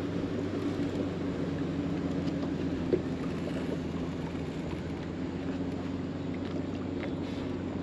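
Steady hum of a boat motor running under the fight, with one short click about three seconds in.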